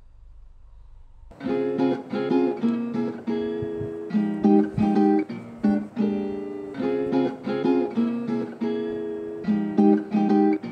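Background music: a strummed acoustic guitar playing a steady run of chords, starting about a second in.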